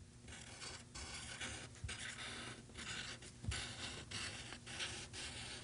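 Pencil tracing a drawing through transfer paper, scratching on paper in short, irregular strokes one after another.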